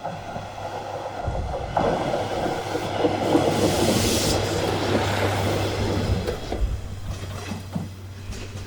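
Single-car diesel railcar passing over a level crossing: the engine's steady low drone and the rumble and clatter of its wheels on the rails build up, peak about three to four seconds in, then fade away.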